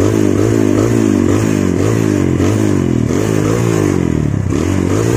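Motorcycle engine fitted with a Honda Tiger slide-type carburetor, running under way on a rough dirt trail. Its note rises and falls in quick repeated swings, about two a second, loud and continuous.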